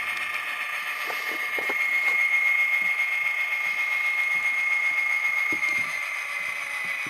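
Model diesel locomotive sound decoder (Tsunami, EMD 567 sound set) playing a diesel engine through a small oval speaker, with a steady high whine that swells about two seconds in and eases near six seconds. Light clicks sound here and there underneath.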